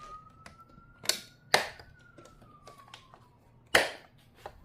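Plastic clips on a car's engine air filter housing snapping shut: sharp snaps about a second in, again half a second later and near the end, with lighter clicks between.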